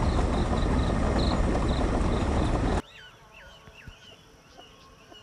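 Loud, steady rushing of wind over the microphone while travelling along a road, with faint high chirps in it. About three seconds in it cuts off sharply to quiet open-air ambience, where a bird calls with repeated looping whistles.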